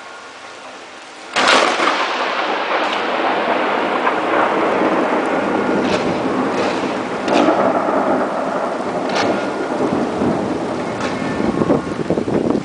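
A close lightning strike: a sudden sharp crack of thunder about a second and a half in, then a long rolling rumble over rain, with a few more short, sharp cracks later on.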